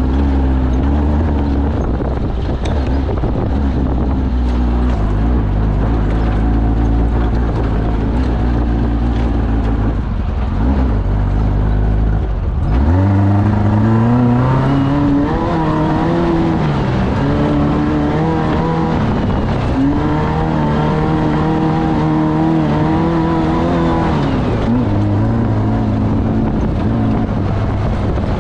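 Off-road race vehicle's engine running hard, its pitch rising and falling with throttle. About halfway through the pitch drops sharply, then climbs again, followed by several swells up and down.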